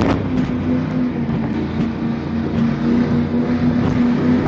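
A 1300 hp cigarette boat's engines running steadily at speed, a deep, even engine note with a rushing noise of wind and water over it.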